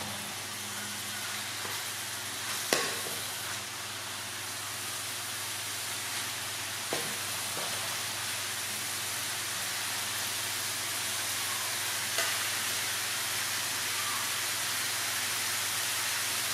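Lemongrass paste sizzling steadily in hot oil in an aluminium wok while a metal spatula stirs it. The spatula knocks against the pan three times, the loudest about three seconds in.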